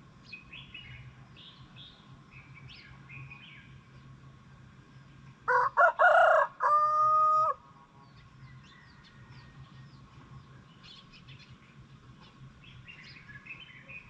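A rooster crows once, about five and a half seconds in: a few short choppy notes, then a long held final note, about two seconds in all and the loudest sound here. Small birds chirp sparsely around it.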